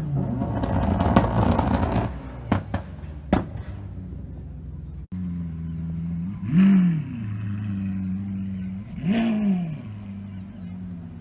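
Supercar exhaust sound: a loud, rough engine run with a few sharp exhaust cracks in the first few seconds, likely the Lamborghini Huracán Performante's V10. After a cut, another supercar idles and is revved twice, each blip rising and falling back to idle.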